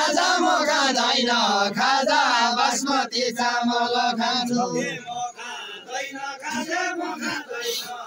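A group of men singing a Deuda, the Far-Western Nepali folk song of the linked-arm circle dance, in chorus. The singing is softer from about five seconds in.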